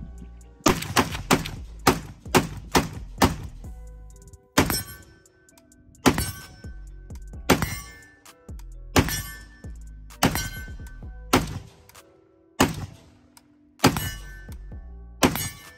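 HellPup AK pistol firing: a rapid bump-fired string of shots in the first few seconds, then single shots about every second and a half. Background music with held tones plays throughout.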